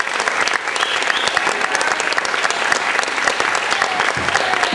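Audience applauding steadily, with voices calling out among the clapping.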